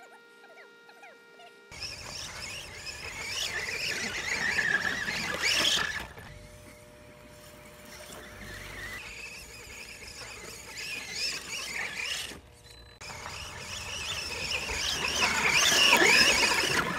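Brushless electric motor of a 1/10-scale RC truck whining at high revs while its tyres spin and scrabble in loose sand. The whine rises and falls in pitch with the throttle. It is quiet at first and loudest in two stretches, a few seconds in and near the end.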